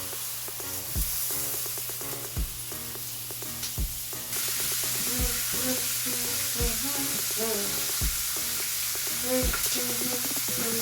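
Bacon sizzling as it fries in a pan, the sizzle growing louder about four seconds in. Background music with a soft, regular beat plays underneath.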